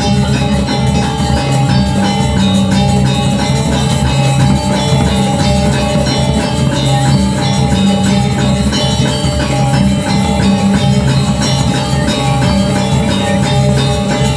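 A Balinese gamelan plays steadily: gilded bronze metallophones sound fast runs of ringing notes over kendang drums.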